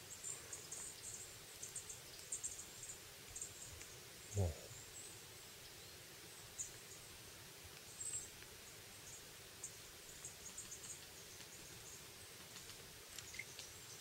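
Faint, high-pitched chirps and calls of small forest birds, scattered throughout. About four seconds in comes a brief low sound that slides down in pitch, the loudest thing here.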